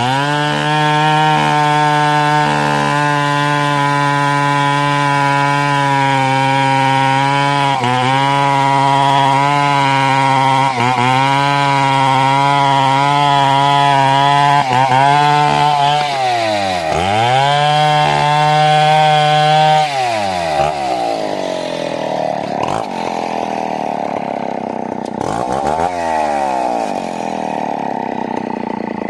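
Two-stroke chainsaw running hard while cutting wood. Its engine note holds steady for long stretches and several times dips sharply in pitch before climbing back. In the last several seconds it runs softer and less even.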